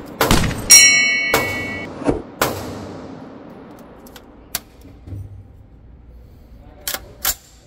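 A 5.56 AR-15 pistol firing a quick string of shots in an indoor range booth, each crack echoing, one followed by a bright metallic ring. After that come small clicks of the rifle being handled and two sharp metallic clacks near the end.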